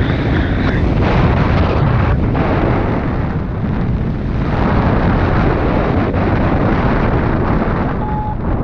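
Strong wind blowing over the microphone in flight: a loud, steady rush, with one short beep near the end.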